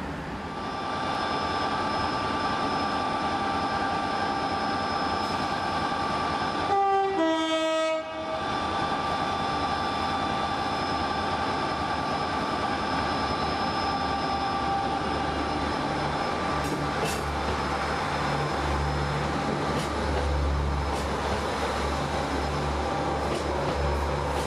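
Diesel trains at a station platform, running steadily with a held whine. About seven seconds in, a two-note train horn sounds briefly, a higher note then a lower one. From about sixteen seconds a deep diesel rumble builds as a train moves past.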